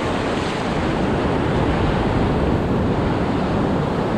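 Steady rush of surf washing, mixed with wind buffeting the microphone.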